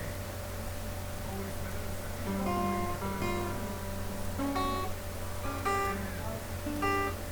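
Acoustic guitar playing a slow melody of single plucked notes over a steady low hum.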